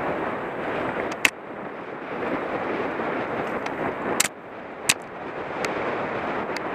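Mountain bike rolling fast down a dirt trail, heard from the moving bike: a steady rush of wind on the microphone and tyre and trail noise. It is broken by sharp knocks from the bike hitting bumps, a loud one about a second in and two more close together about four seconds in.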